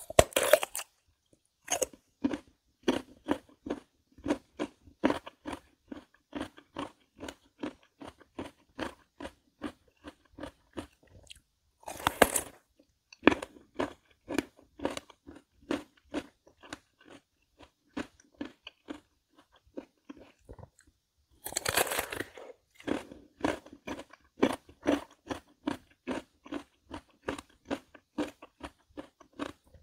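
A person biting into crisp Korean melon (chamoe) and chewing it, crunchy and wet. Three loud bites, at the start, around the middle and about two-thirds through, each followed by steady chewing at about two to three chews a second.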